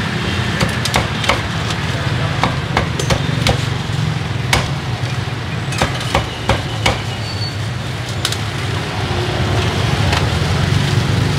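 Cleaver chopping roast pork: a run of sharp chops, a few a second, that thins out about seven seconds in. A steady hum of street traffic runs underneath.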